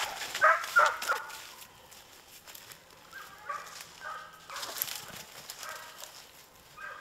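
Bear hounds barking and baying: a close series of loud barks in the first second, then several fainter, more distant barks, with footsteps in snow between them.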